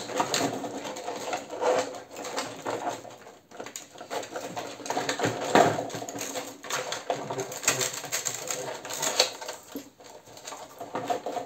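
Hands handling wires and small parts inside a hollow 3D-printed plastic wing fuselage: irregular rustling, clicking and tapping, with a couple of louder knocks about halfway through and near the end.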